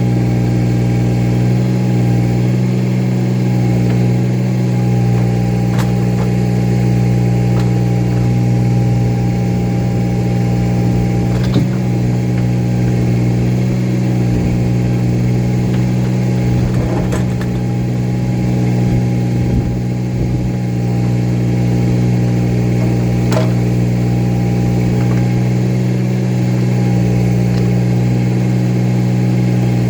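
An engine running steadily at a constant speed, with a few faint knocks over it.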